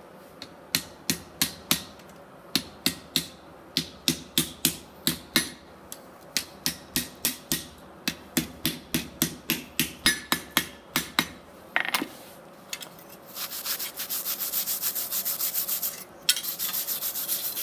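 Hand hammer striking a hot steel leaf on a Hudson anvil, about three blows a second in two runs with a short pause between. Near the end, a wire brush scrubbing the hot leaf on the anvil face in two spells.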